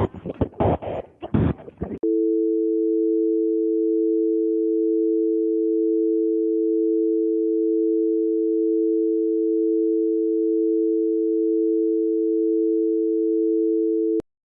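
A North American telephone dial tone: a steady two-note hum that starts about two seconds in, after a short stretch of choppy, crackling phone-line noise, and cuts off suddenly with a click near the end.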